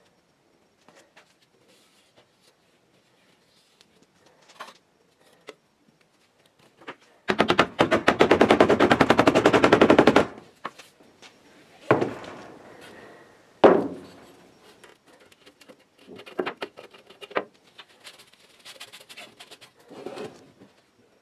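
A rapid rattling run of knocks lasting about three seconds, the loudest thing here. It is followed by two sharp single knocks about a second and a half apart, from a rubber mallet tapping the lid down onto a gallon can of epoxy primer. Faint clinks of cans and tools come between them.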